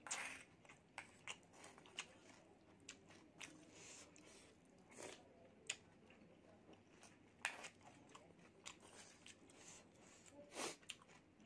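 Quiet, scattered eating sounds: a wooden spoon clicking and scraping in a stone mortar as spicy broth is scooped up, with sips and mouth sounds in between.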